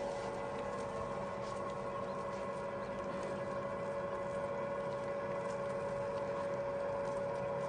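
Quail chicks tapping and scratching on the paper lining of their brooder box: soft, irregular little ticks over a steady hum.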